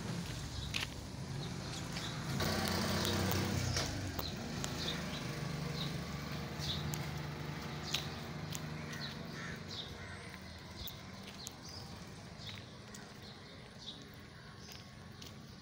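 Outdoor street ambience: a motor vehicle's engine hum that swells for about a second and a half a couple of seconds in, then slowly fades. Short bird calls and light clicks are scattered throughout.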